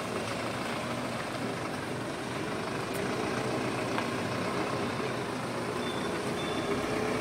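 Truck engine running at a steady pitch.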